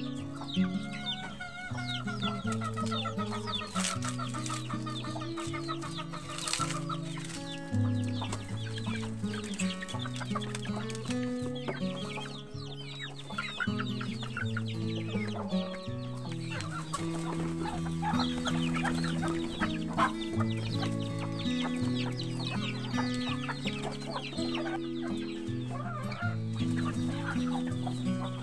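Background music with a low bass line of held notes, with chickens clucking over it.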